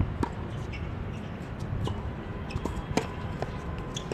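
Tennis ball bounced on a hard court before a serve: a series of short, sharp knocks at irregular intervals over a steady low background rumble.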